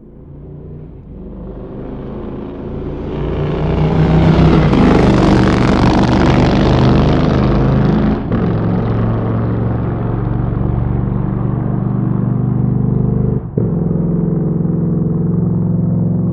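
Motorcycle engine swelling up from quiet to a loud peak a few seconds in, then running steadily, with two brief dips in sound, about eight and thirteen seconds in.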